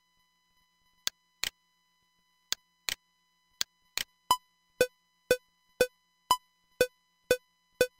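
Cubase SX's metronome click starts about four seconds in: an even click twice a second at 120 beats per minute, with a higher click on the first beat of each four-beat bar and lower clicks on the other three. Before it come a few sharp clicks in pairs, like a computer mouse being clicked.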